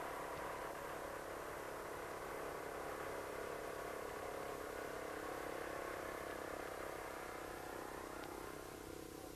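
Hanomag R12 tractor's single-cylinder two-stroke diesel engine running steadily under load while ploughing, fading slightly near the end.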